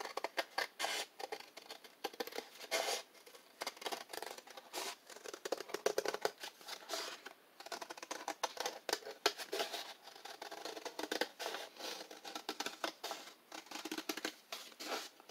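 Scissors cutting into a paper plate: a long run of short snips through the paper, with brief pauses between runs.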